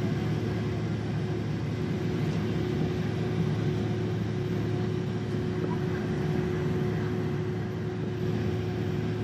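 Steady jet engine and cabin hum inside a Boeing 767-300ER as it taxis, with a constant low drone and a thin steady whine; the engine sound neither rises nor falls.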